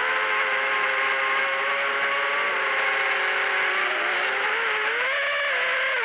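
Eachine Wizard X220 FPV quadcopter's brushless motors and propellers whining in flight, a held pitch that wavers down and back up near the end as the throttle changes.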